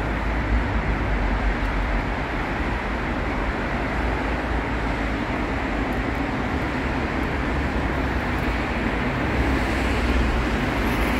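Steady rumble and hiss of road traffic, continuous and even, with no distinct events.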